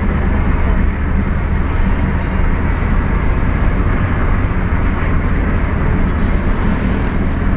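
Steady engine hum and road noise of a vehicle driving at a constant speed.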